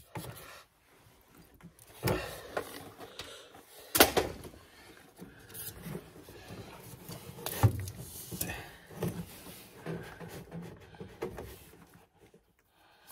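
Handling noises from working on PEX pipe and tools overhead in a crawlspace: irregular knocks and clunks with rustling in between, the sharpest knocks about four and seven and a half seconds in.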